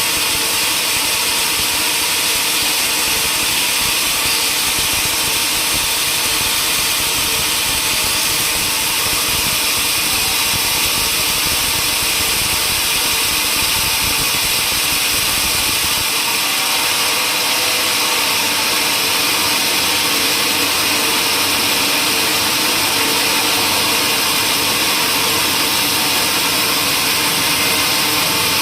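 Sawmill machinery running steadily with a loud hiss; the low rumble beneath it drops away about halfway through.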